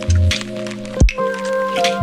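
Background music with a steady beat: drum hits, deep bass notes and held chords.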